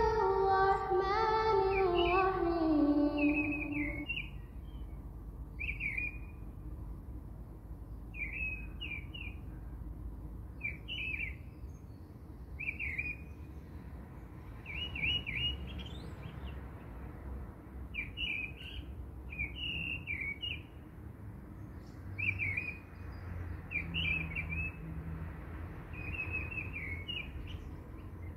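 A high sung melody ends about four seconds in. Then a bird chirps over and over, in short clusters of quick high notes every one to two seconds.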